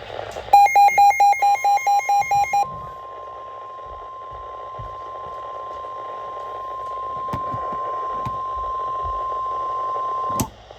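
A rapid run of electronic beeps, about five a second for two seconds, runs into the steady single-pitch warning alarm tone of NOAA Weather Radio. The tone sounds an emergency weather warning, holds for about nine seconds and cuts off with a click, over a steady radio hiss.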